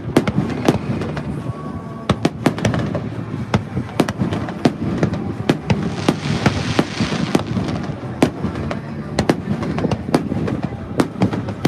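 Fireworks going off in quick, irregular succession: many sharp bangs and cracks over a low rumble, with a hissing swell about six seconds in.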